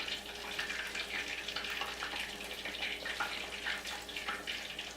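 Hot vegetable oil sizzling steadily with small irregular crackles as food fries in the pan.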